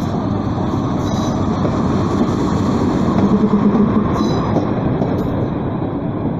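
Passenger train hauled by an EP08 electric locomotive passing close by, its coaches rolling past with a steady rumble of wheels on the rails that swells a little about three to four seconds in.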